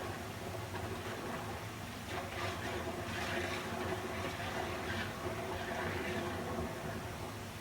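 Steady rushing of flowing water, used as sleep white noise, with gentle swells in the hiss and a faint steady low hum underneath.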